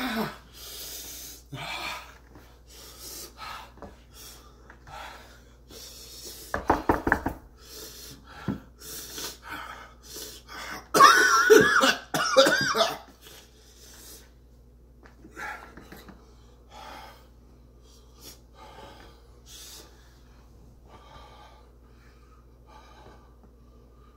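A man coughing, gasping and breathing hard in short bursts, his mouth burning from an extremely hot chili chocolate bar. About halfway through he lets out a loud, strained groan lasting a couple of seconds, and his breaths grow fainter toward the end.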